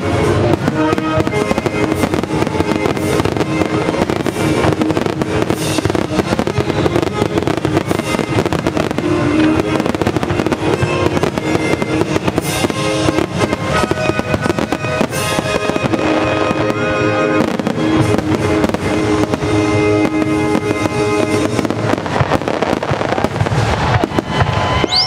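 Aerial fireworks display: shells bursting and crackling one after another, with music playing under the bangs.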